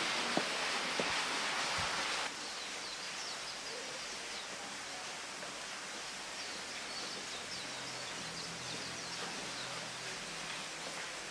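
Running water hissing steadily, with a couple of sharp knocks, cutting off suddenly about two seconds in to a quieter outdoor ambience where small birds chirp in short, high notes.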